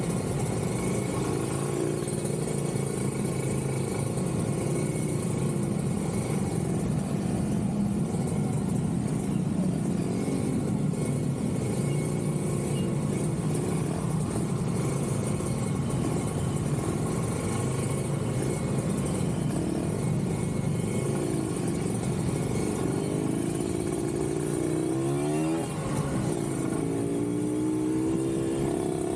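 Kawasaki Ninja 150RR's two-stroke single-cylinder engine running while riding in traffic, with the sound of surrounding cars and motorcycles. Near the end the engine pitch rises and falls several times as it revs.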